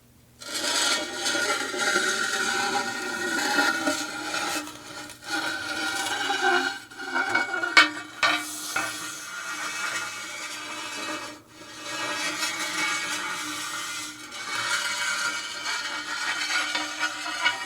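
Designed sound effect of a fuel rod being inserted: a long scraping, sliding sound with a steady ringing tone underneath, starting about half a second in. A sharp clank about eight seconds in is the loudest moment, and the sound dips briefly before carrying on.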